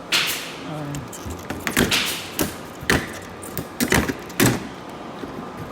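A swish, then a run of sharp knocks and clunks at irregular intervals: hard objects being handled and bumped together.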